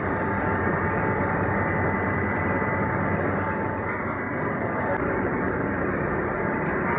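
Machinery of a PVC flooring sheet production line running: a continuous, steady drone with a thin steady tone over it.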